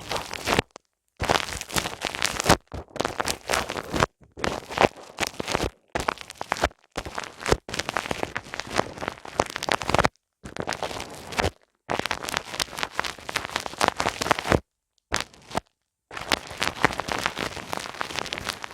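ASMR ear massage: close, crackly rubbing and scratching on a microphone's ears, in stretches of a second or two that cut off abruptly into short silences.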